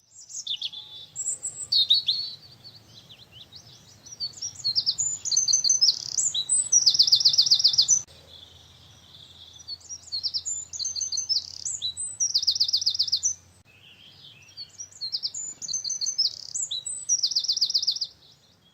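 A songbird singing three song phrases, each made of varied high chirps and ending in a fast run of evenly repeated notes.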